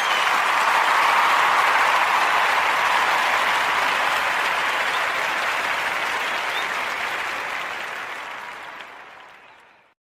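A crowd applauding, swelling in and then fading away to nothing near the end.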